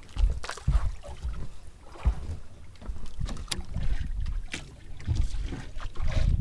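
Wind buffeting the microphone in irregular gusts on a small fishing boat on open water, with a few short knocks and clicks.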